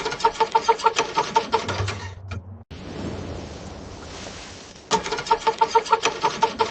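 Cold car engine cranked over by its starter without catching, in two bursts of about two seconds, each a fast rhythmic chugging with a pulsing starter whine at about seven beats a second. A steady hiss fills the gap between the bursts.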